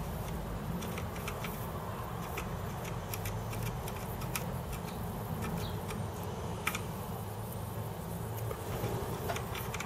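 Faint scattered crackles of flux sizzling as a soldering iron reflows the pins of a surface-mount chip, over a steady low hum.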